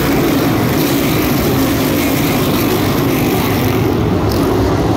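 A pack of NASCAR Cup Series cars with pushrod V8 engines, all running hard together as the field races past on a restart. It makes a loud, steady, dense din.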